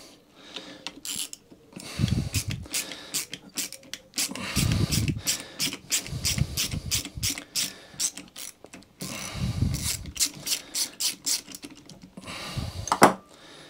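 Hand ratchet with a socket on an extension clicking in quick runs with short pauses, as loosened bolts are run out of a lawnmower gearbox casing. A single louder click comes near the end.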